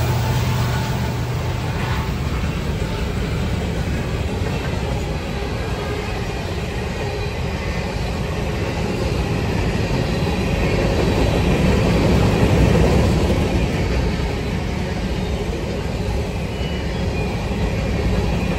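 Covered hopper cars of a Norfolk Southern grain train rolling past, a steady low rumble of steel wheels on the rails that swells a little about twelve seconds in.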